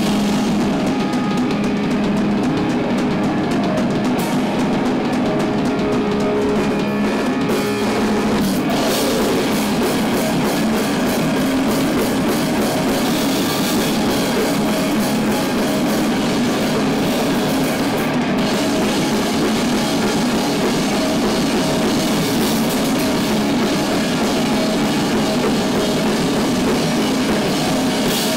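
A live rock band playing loud and heavy, with electric guitars and a full drum kit with cymbals. The sound grows denser about nine seconds in.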